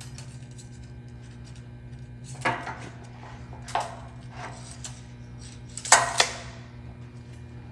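Tools being handled against a door jamb while a center line is marked: a few sharp taps and clinks, the loudest a quick double knock with a short ring a little past halfway, over a steady low hum.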